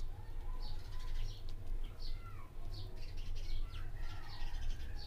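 Small birds chirping in the background: repeated short, high chirps mixed with a few brief sliding calls, over a steady low hum.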